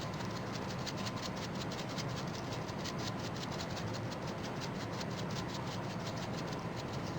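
Hand pepper mill being turned, grinding black pepper into the pot with even, rapid clicks, about six a second.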